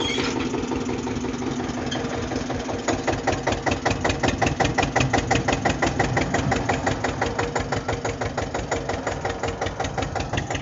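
Tractor engine running under load as it pulls a tine cultivator between sugarcane rows. It starts as a steady hum, and about three seconds in turns to a strong, even chugging of roughly seven beats a second.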